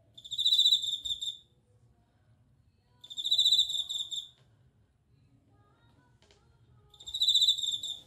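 Japanese bell cricket (suzumushi) singing: three high, finely pulsed trills, each a little over a second long, about three seconds apart.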